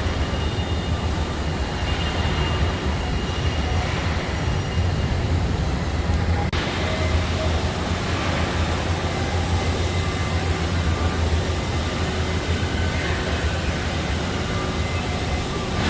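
Steady factory-floor background noise in a vehicle assembly plant: a low rumble with a few faint machine whines above it. The upper part of the sound changes abruptly about halfway through.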